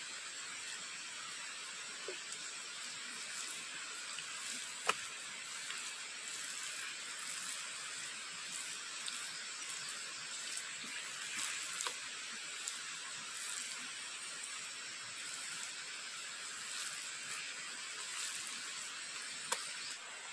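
Wood fire burning in a stove: a steady hiss with scattered sharp crackles and pops, one louder pop about five seconds in and another near the end.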